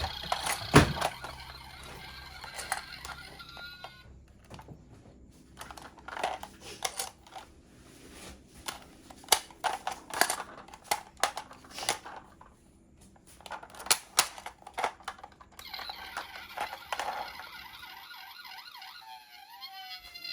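Toy ambulance minicars clicking and knocking on a hard surface, with a loud knock about a second in and a run of irregular clicks through the middle. Near the end a toy electronic siren starts up, wailing up and down.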